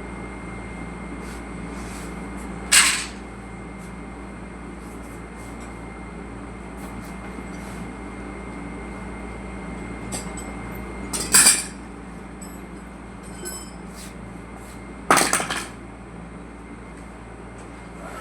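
A steady hum with a faint high-pitched whine, broken three times by loud, short clattering knocks: once about three seconds in, then twice more in the second half.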